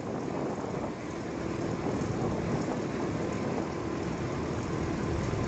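MV-22 Osprey tiltrotor in flight, a steady drone of its engines and proprotors that grows a little louder after about a second.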